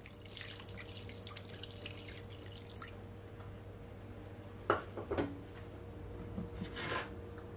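Hot water poured from a jug into a glass baking dish, splashing for about three seconds, followed by a few light knocks.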